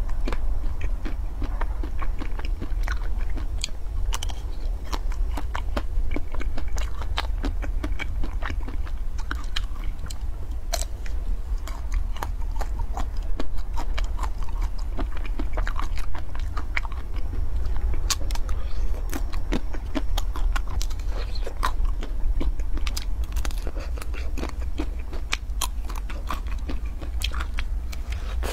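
Close-up biting and chewing of chocolate-coated ice cream bars with a nut coating. The hard chocolate shell cracks and crunches in many small, sharp, irregular clicks over a steady low hum.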